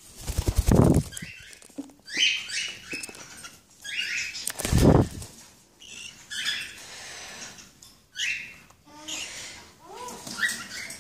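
Cockatiels on a cage top: two bouts of fast wing-flapping, each about a second long, near the start and again about halfway, with short chirps and a juvenile male's warbling attempts at song between them.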